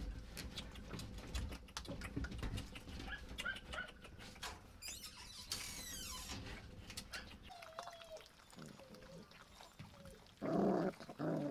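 Rottweiler puppies eating raw fish together: dense wet chewing, smacking and licking clicks, a thin wavering puppy whine, then two short loud puppy cries near the end.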